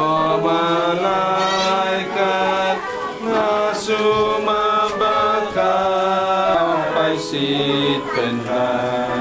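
Voices singing a hymn together without accompaniment, in held notes that step to a new pitch every second or so, with short breaths between phrases.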